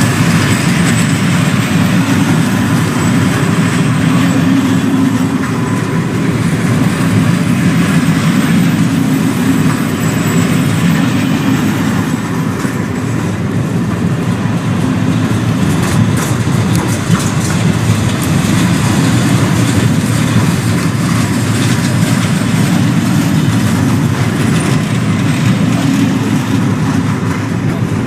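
Freight train rolling past, its wagons' wheels running over the rails in a steady, loud rumble, with a few faint clicks midway.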